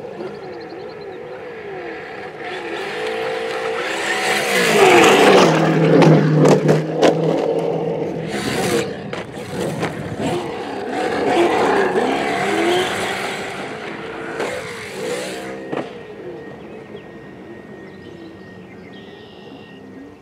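Traxxas Slash 4x4 VXL RC short-course truck's brushless electric motor whining, its pitch rising and falling with the throttle, over the noise of its tyres on dirt. It is loudest about five to seven seconds in, with a few sharp knocks around eight to nine seconds in, then fades.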